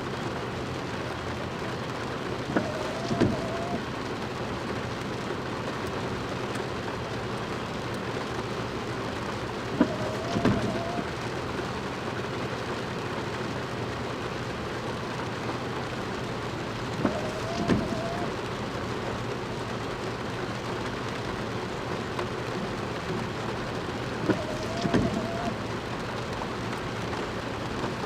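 Steady heavy rain. Four times, about every seven seconds, a click, a short squeak and a couple of knocks cut through it.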